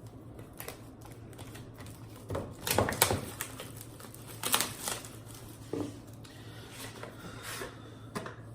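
A trading-card box and its pack being opened by hand: a few separate crinkles, tears and clicks.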